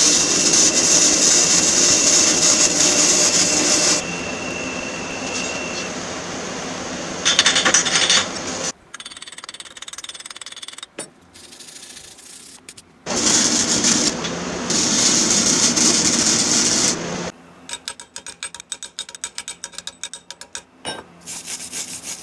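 Metalwork as a bracket is welded onto a tractor running board: several loud stretches of hissing, crackling noise, broken up by quieter gaps and sudden cuts, with a run of rapid ticks near the end.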